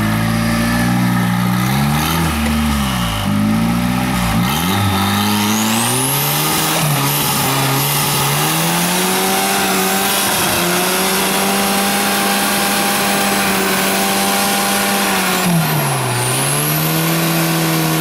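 Turbocharged Toyota engine in a rock-crawling buggy under load. It blips in quick revs, then climbs and holds at high revs, dips briefly near the end and rises again. A high turbo whistle rises as the revs build.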